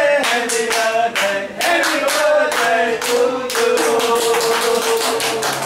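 A group of people singing together and clapping in time, about two to three claps a second, with one long held note past the middle.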